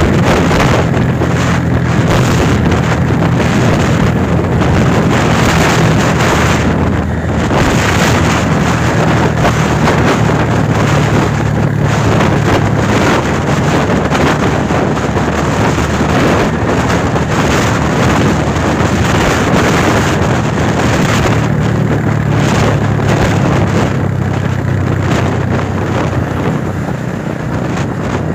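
An engine runs steadily with a low hum under heavy wind noise on the microphone, as when filming from a moving vehicle.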